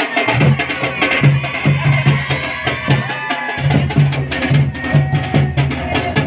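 Pahadi folk dance music with a quick, steady drum beat about three strokes a second, sharp percussive clicks and many voices over it.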